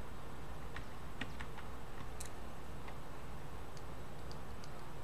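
Computer keyboard keys clicking now and then, a few scattered irregular taps, over a steady low hum.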